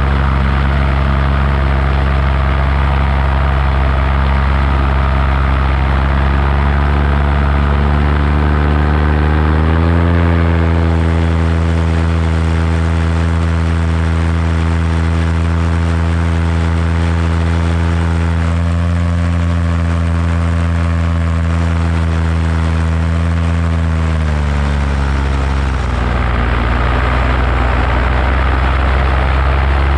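Paramotor engine and propeller running steadily. The revs rise a little about ten seconds in, hold, then drop back again about twenty-five seconds in.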